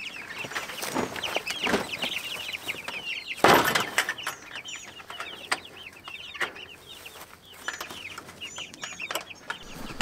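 A flock of young Cornish Cross meat chicks peeping continually, many short high calls overlapping. A brief rustling burst about three and a half seconds in is the loudest moment.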